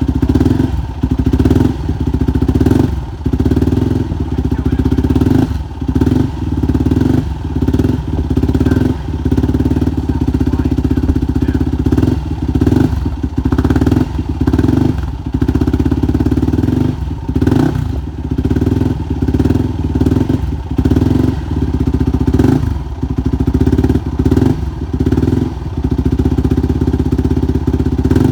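2005 Yamaha WR450F's 450 cc single-cylinder four-stroke engine running on its first start after a full top- and bottom-end rebuild, with new timing chain, cam chain tensioner and main bearings. It runs steadily, with frequent brief dips in level.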